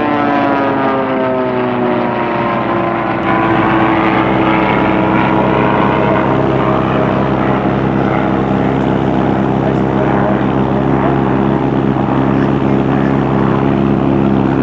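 Racing plane's piston engine and propeller passing at speed, the pitch falling over the first few seconds as it goes by, then a steady engine drone as it flies on around the course.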